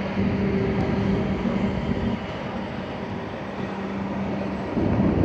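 Steady rushing noise of a storm with a constant low hum through it, and a deeper rumble swelling near the end.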